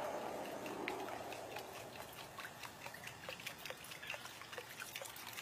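An Imakatsu Aventa Crawler surface lure being retrieved dead-slow across calm water, its wings paddling the surface. A short wash of water fades out in the first second, then a steady run of small plops and clicks at about three a second.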